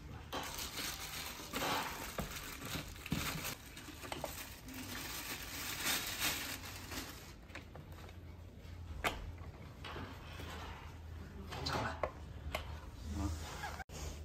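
Clear plastic bag rustling and crinkling as a robot vacuum is pulled out of it and handled, with a few sharp plastic knocks in between.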